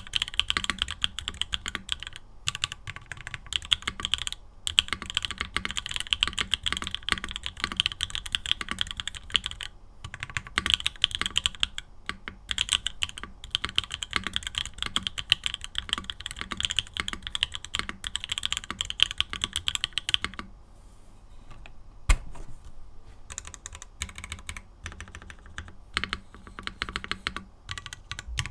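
Fast typing on a Mode Tempo 60% mechanical keyboard fitted with PBT keycaps and Mode Obscura switches, with no foam in the case. The typing stops about two-thirds of the way through, a single sharp click follows, then slower, separate keystrokes.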